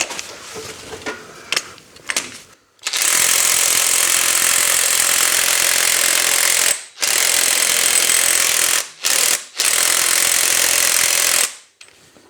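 Parkside 20 V cordless impact wrench hammering on a nut torqued to over 210 Nm, in four bursts with short pauses between them, the first and longest about four seconds. The wrench struggles and does not break the nut loose. Light handling clicks come before the first burst.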